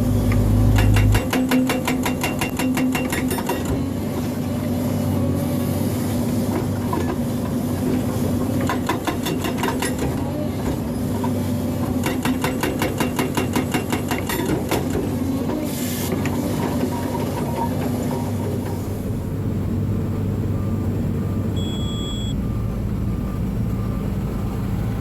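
Excavator engine running while a hydraulic breaker hammers concrete in rapid bursts of a few seconds each. Near the end a reversing alarm beeps faintly.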